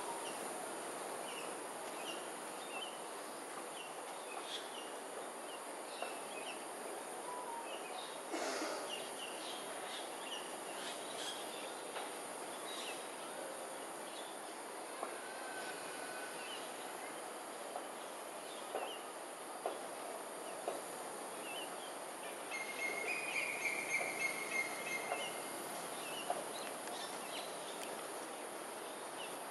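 Outdoor ambience: a steady high-pitched insect drone with scattered short bird chirps, and a run of repeated bird calls about 23 seconds in.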